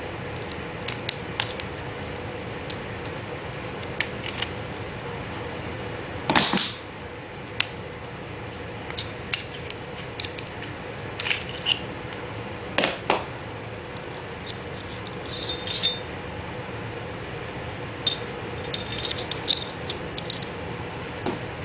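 Maruzen P99 airsoft pistol being field-stripped by hand: scattered clicks and clacks of its parts being handled and snapped apart, a few louder knocks among them, over a steady background hiss with a faint hum.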